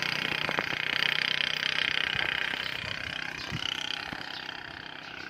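Motorcycle engine running through a Daeng aftermarket exhaust pipe with its silencer removed: a steady, open exhaust noise that slowly fades over the second half.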